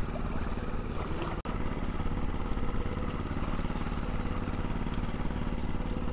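Small boat engine running steadily at an even speed, with a splash-like haze over it. The sound drops out for an instant about a second and a half in.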